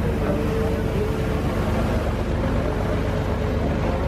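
Engine of a river passenger launch running steadily, with a low, rapid pulsing drone.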